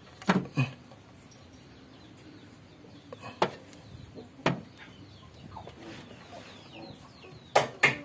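Scattered clinks and knocks of metal hand tools with faint bird calls behind. Near the end a steady run of loud hammer blows starts, about three a second, and is the loudest sound.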